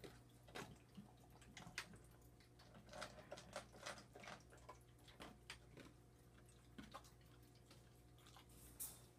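Faint, irregular clicks and crunches of a kitten eating dry food from a stainless steel bowl.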